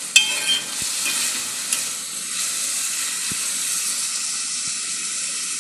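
Diced onion and a small Scotch bonnet pepper frying and sizzling steadily in a pan, with a sharp ringing clink of a utensil against the pan just after the start and a lighter tap about a second and a half later.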